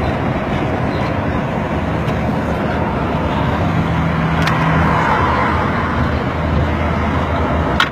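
Vintage FNM vehicle's engine running steadily at road speed, mixed with tyre and wind noise. Two brief sharp clicks, one midway and one near the end.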